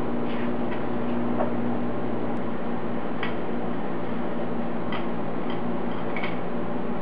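Faint scattered clicks and taps of aluminium intercooler piping and hose couplers being fitted into an engine bay, over a steady hum and hiss.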